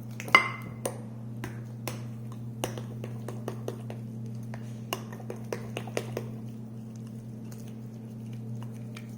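A utensil mixing eggplant dip in a bowl, with irregular clicks and light taps against the bowl and one ringing clink about half a second in; the tapping thins out in the last few seconds. A steady low hum runs underneath.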